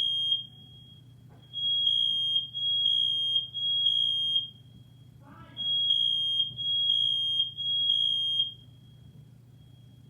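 Household smoke alarms sounding their three-beep evacuation pattern: a loud, high beep in sets of three with about a second's pause between sets, a fainter alarm carrying on in the gaps. The alarms were set off by smoke from cooking.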